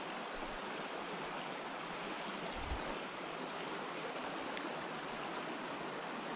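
Small creek running over a shallow riffle: a steady rushing of water, with one faint click about four and a half seconds in.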